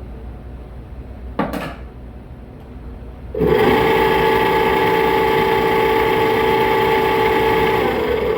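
HVAC unit's belt-driven blower running with a knock about a second and a half in. A loud, steady, high-pitched whine starts suddenly about three and a half seconds in and holds. The technician says it doesn't sound good and puts it down to bad bearings.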